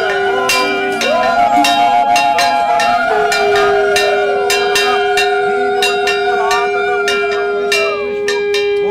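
Conch shells blown in long, overlapping held notes that slide up at the start and fall away at the end, over a puja hand bell rung with several quick strokes a second, the sounds of a Hindu worship ritual.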